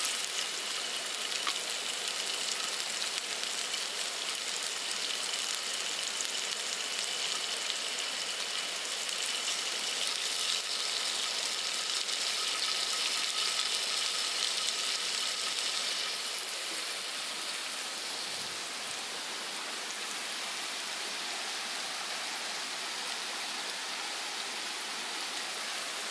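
Chicken and chicken-heart skewers sizzling on a small tabletop grill, a steady hiss that grows a little louder in the middle and eases after about sixteen seconds.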